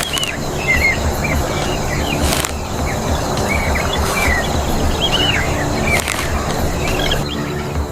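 Birds chirping in short repeated calls over a steady outdoor ambience, with soft background music underneath.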